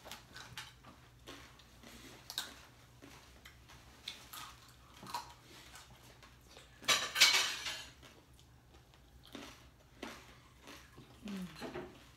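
Forks and dishes clinking and scraping at a dinner table, in scattered short clicks, with a louder clattering scrape about a second long some seven seconds in.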